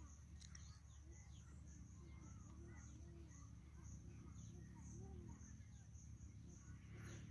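Near silence: faint open-field ambience, with a high-pitched insect chirr pulsing evenly a few times a second and faint short low calls over a low rumble.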